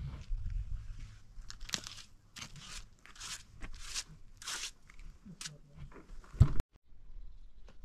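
Trowel scraping over fresh wet cement in a run of about six rasping strokes as the surface is smoothed. A single sharp thump comes near the end.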